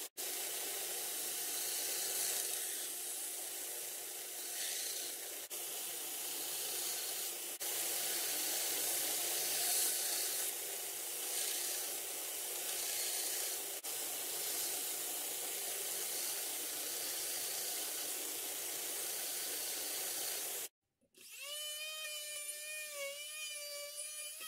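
Homemade belt sander grinding the edge of a hard steel cleaver blank, a steady rough hiss with a few brief breaks. Near the end, after a short silence, a rotary tool with a small sanding drum whines at a high, slightly wavering pitch as it sands an inside curve of the blank.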